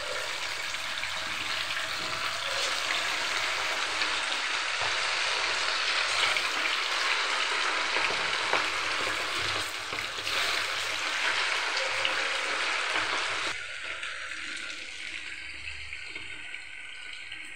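Marinated chicken pieces deep-frying in hot oil in a kadai: a steady loud sizzle that drops to a quieter sizzle about 13 seconds in.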